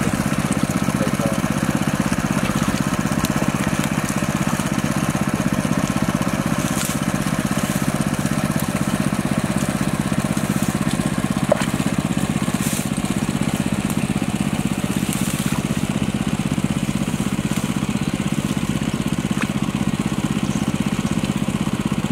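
A small engine running steadily at an even speed, with a few brief splashes of hands in wet mud.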